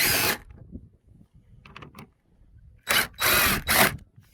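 A driver with a Torx bit unscrewing the bolts that hold the RZR's front cover, in short runs: one at the very start and a longer, broken run about three seconds in.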